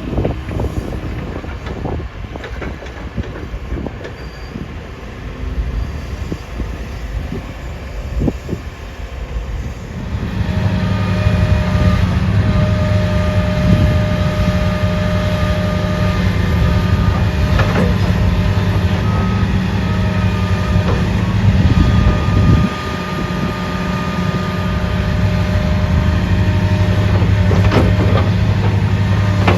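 Train running past on the railway line: at first only a low rumble with scattered knocks, then about a third of the way in a loud steady engine hum with a few thin higher tones comes in and holds.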